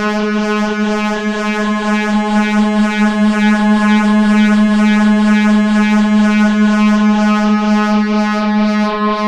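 Modular synthesizer drone holding one low tone at about 210 Hz with a thick stack of overtones, the upper part pulsing a few times a second. One oscillator is drifting off the tuning, which makes the drone wobble.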